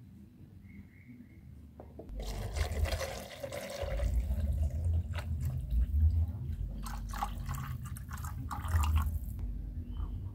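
Warm water poured in a thin stream into a plastic bottle, filling it. The pour starts about two seconds in and stops shortly before the end.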